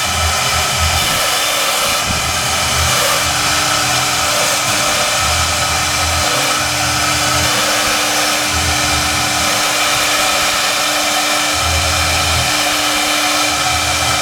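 Large CNC foam router running: a steady, loud spindle whine with a low hum that comes and goes every second or so.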